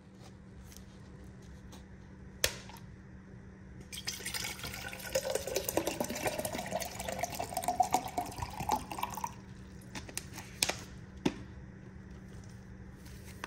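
Water poured from a plastic bottle into a stainless steel cup, splashing for about five seconds with a pitch that rises as the cup fills. A sharp click a couple of seconds in and two more near the end.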